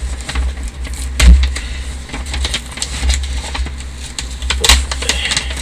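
Handling noise as a postal packet is opened by hand: rustling and crinkling with scattered clicks, and a louder knock about a second in and another near the end, over a steady low rumble.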